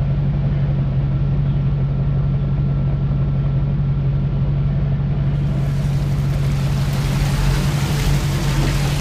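Land Rover engine running steadily: a constant low drone that holds the same pitch throughout.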